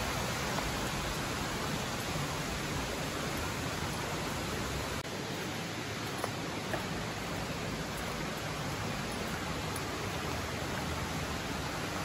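Steady rushing of creek water, an even hiss with no pauses.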